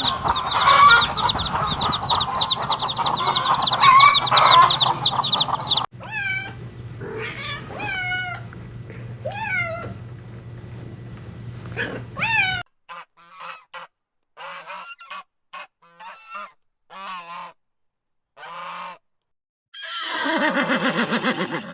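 Farmyard fowl calling in several short cuts. First a flock calls all at once, with many overlapping cries. Then come separate honking calls that swoop in pitch, then short clipped calls with silent gaps between them. Near the end there is one long loud call.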